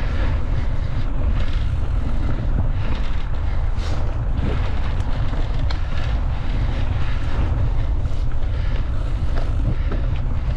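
A mountain bike being ridden along a trail, with wind rumbling on the microphone and frequent short rattles and knocks from the bike.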